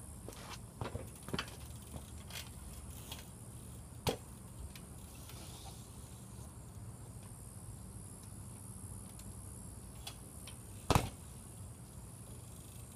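BMX bike being ridden: a steady low rolling rumble with scattered light clicks and knocks, a sharper knock about four seconds in and the loudest knock about eleven seconds in.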